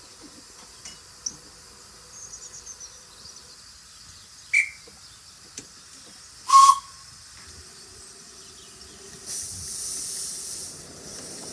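Miniature steam locomotive Elikapika: a short toot of its whistle about two thirds of the way in, then a loud steam hiss from its open cylinder drain cocks as it sets off.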